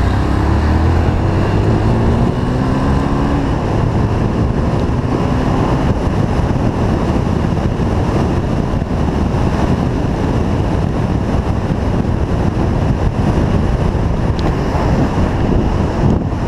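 Honda CB300 single-cylinder motorcycle engine pulling away, its pitch rising over the first few seconds. After that, steady wind rush on the helmet-mounted camera's microphone dominates as the bike rides on.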